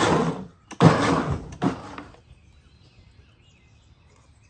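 Countertop blender pulsed three times in quick succession over about two seconds, chopping roasted tomatoes, onion and jalapeno into salsa and stopping short so the salsa stays chunky. Faint bird chirps follow.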